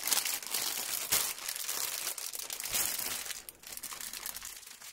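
Thin clear plastic bags crinkling as a bundle of small zip-lock bags of diamond-painting drills is pulled apart and sorted by hand. The crinkling is busiest over the first three seconds and thins out near the end.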